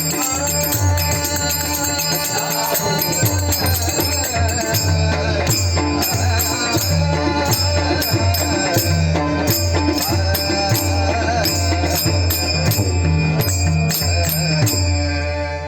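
Bhajan music without sung words: a drum beats a steady rhythm of deep strokes while small hand cymbals clash on the beat, over sustained melodic tones.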